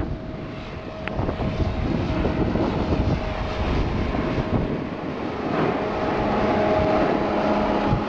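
Wind rushing over the microphone and snowboard edges scraping across groomed snow during a downhill run. A steady hum at a few fixed pitches grows clearer over the last couple of seconds.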